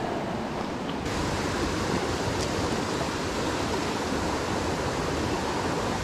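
Steady rush of a small rocky creek's running water, turning a little louder and hissier about a second in.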